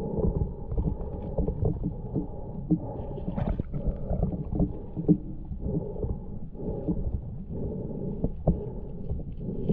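Muffled underwater sound of a stream heard from beneath the surface: a steady low rumble of moving water, with several sharp knocks and clicks.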